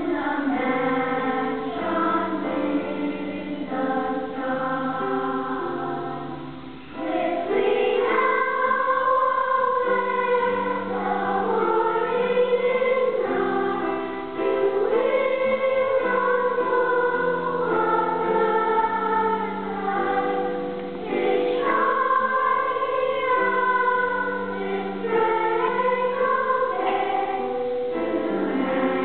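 A choir singing in sustained, many-voiced phrases. It eases off briefly about seven seconds in, then comes back fuller and louder.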